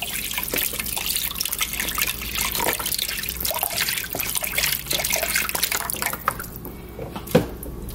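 Beef broth pouring in a stream into a hot pan of browned drippings, splashing and bubbling as a wooden spoon stirs the bottom. The pour thins out about six seconds in, and there is a single knock near the end.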